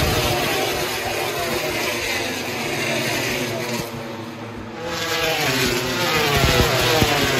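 MotoGP racing motorcycles passing at speed, several engines at once rising and falling in pitch as they go by. The sound dips briefly about four seconds in, then picks up again as more bikes pass.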